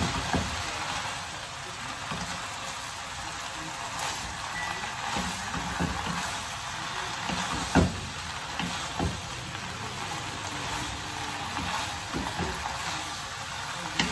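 Rice noodles and cabbage sizzling in a hot pan on a gas stove while being stirred and tossed with a metal spatula and a wooden spoon, with a steady hiss. A few knocks of the utensils against the pan, the loudest about eight seconds in.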